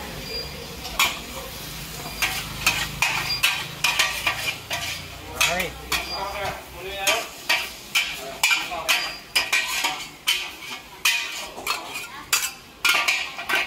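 A steel ladle and long tongs stir, scrape and clank against a large wok of frying rice vermicelli sizzling in its stock, with many sharp metal clanks as the noodles are scooped out. A low rumble under the sizzle dies away about four seconds in.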